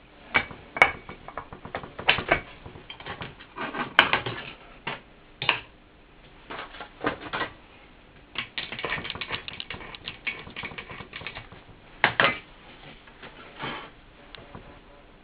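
Irregular clicks, knocks and scrapes as an Infinity Genesis bass loudspeaker driver is handled and turned on a workbench, its frame knocking against the bench. There is a dense run of quick ticks in the middle, and sharper knocks near the start and about three-quarters of the way through.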